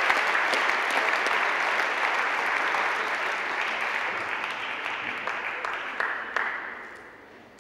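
Audience applauding, loudest at first and then dying away over about seven seconds, with a few last scattered claps near the end.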